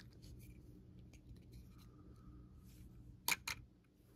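Two quick, sharp clicks a little over three seconds in, a fraction of a second apart, over a faint low room hum.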